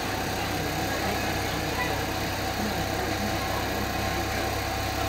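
Steady low mechanical hum, like an engine running, with faint voices in the background.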